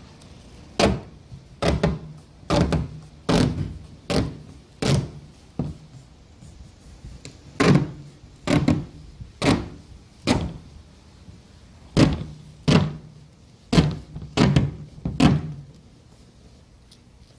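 Hollow thumps from a hand pressing and patting tape down onto a plastic kayak hull. There are about fifteen firm knocks, roughly one a second, in three runs with short pauses between them.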